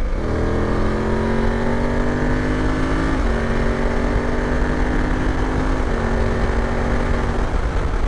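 BMW F 750 GS parallel-twin engine accelerating under open throttle, its pitch climbing steadily. It shifts up twice without the clutch through the Gear Shift Assist quickshifter, fourth to fifth about three seconds in and fifth to sixth about six seconds in, and the pitch drops at each shift. Steady wind rush over the microphone.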